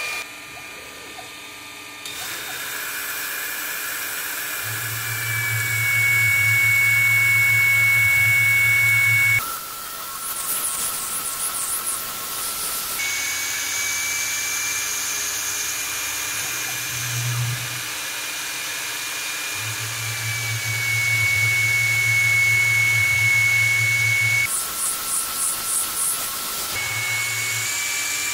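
CNC-converted PM-30 benchtop milling machine cutting slots in an aluminium bracket with a small end mill: the spindle gives a steady high whine that steps up in pitch a few times. Two louder stretches of cutting carry a low hum, and twice the whine gives way to a few seconds of hiss.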